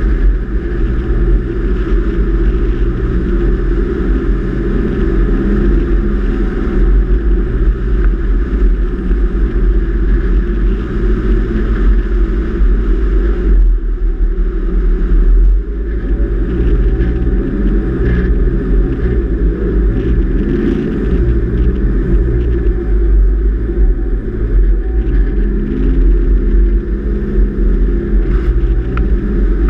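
A vehicle driving along beach sand: steady engine and tyre noise under a heavy low rumble, dipping briefly about halfway through.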